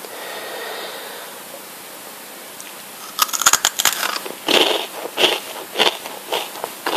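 Calbee Jagabee fried potato sticks being bitten and chewed, crunching crisply. A quiet stretch is followed, about three seconds in, by a sharp crackling bite, then a steady series of crunchy chews about one to two a second.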